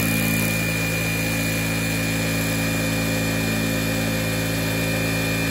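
Daisen DS R1 industrial sewing machine starting up and running at a steady speed to wind a bobbin on its bobbin winder. It makes an even mechanical hum with a thin high whine.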